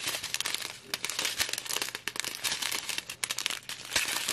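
Crinkling of a strip of small clear plastic bags of diamond painting drills as it is handled and turned over in the hands, irregular crackles throughout.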